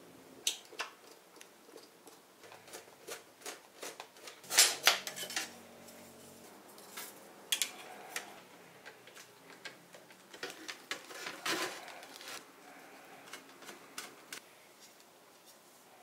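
Noctua case fans and a liquid-cooling radiator being handled and set down on a hard tabletop: irregular clicks, taps and clattering knocks, the loudest cluster about four and a half seconds in.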